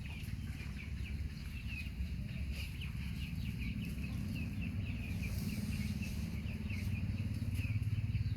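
Birds chirping in a quick, steady run of short, high peeps, over a low, steady rumble that grows a little louder near the end.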